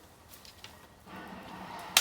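Bamboo burning in a bonfire: a few small crackles, then a hiss building from about a second in, ending in one loud sharp crack near the end as a bamboo section bursts.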